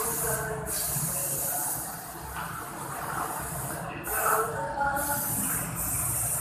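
A child snoring: noisy, hissing breaths in and out, with short pauses between them.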